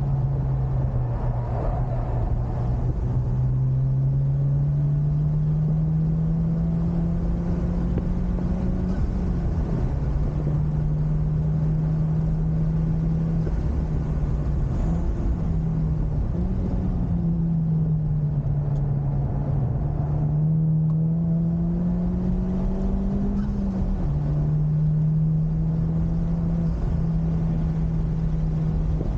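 Honda Civic Type R's turbocharged 2.0-litre four-cylinder engine under load at track speed, its note climbing and falling with throttle and gears, with a sharp drop about 24 seconds in. A steady rush of road and wind noise runs underneath.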